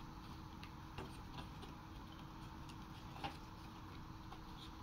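Faint, scattered clicks and taps of a balsa rubber-powered model plane being handled as its rubber-band motor is hooked onto the plastic propeller hook, with a sharper click about three seconds in.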